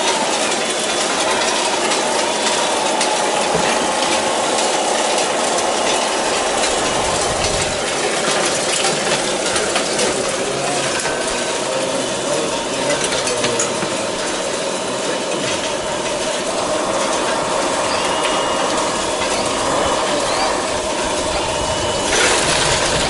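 Radio-controlled construction machine's electric drive and gears whining and rattling as it works, the whine wandering up and down in pitch, with many small clicks.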